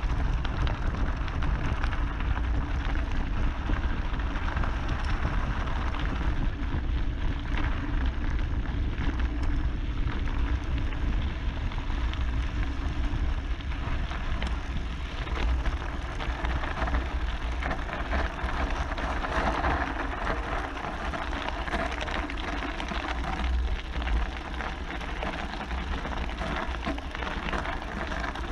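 Scott Spark Comp full-suspension mountain bike rolling fast down a loose gravel track: tyres crunching and crackling over stones, the bike rattling, under a constant low rumble as heard from a camera mounted on the bike. The noise eases a little near the end as the bike slows.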